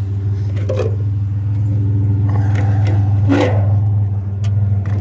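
Old pickup truck's engine running steadily with a low hum, with a couple of brief knocks or scrapes about a second in and again about three seconds in.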